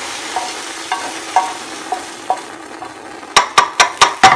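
Light taps of a utensil scraping the last of a vegetable filling from a frying pan, about two a second, over a fading sizzle. From about three seconds in, a rapid run of loud sharp clicks, about five a second, as the emptied frying pan is set back on the gas stove.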